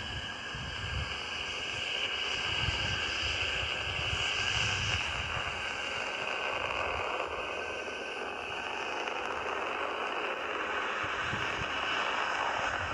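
Distant launch rumble of a 3D-printed Relativity Space Terran 1 rocket: a steady, even roar with no distinct strokes, heard from miles away.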